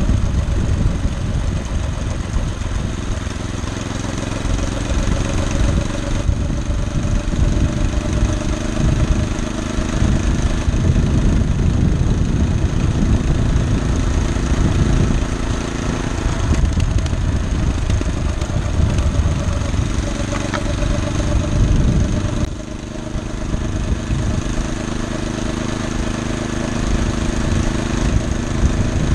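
Small engine of a homemade motorized rail cart running steadily under way, with the rumble of the cart rolling along old rail. The sound dips slightly about three-quarters through.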